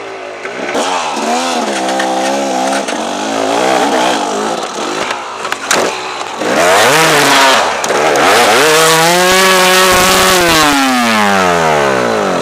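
Dirt bike engine revving hard, its pitch climbing and dropping several times as the throttle is worked, then held high for a couple of seconds before falling steadily away near the end.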